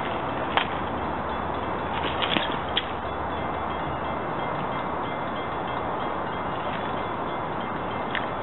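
Steady wind noise on the microphone, with a few short, high metallic pings: one a little over half a second in and a cluster around two to three seconds in.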